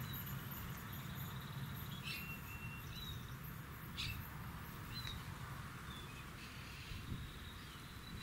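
Birds chirping faintly, a few short calls scattered over a low steady background rumble.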